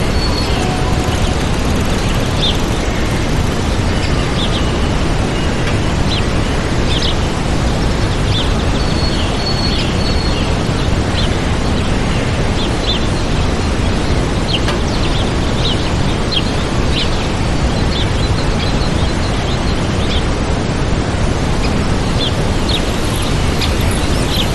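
Waterfall rushing steadily, with small birds giving short high chirps now and then over it.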